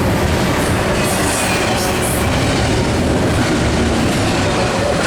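Intermodal freight train cars rolling past at close range, a loud, steady rumble of steel wheels on the rails.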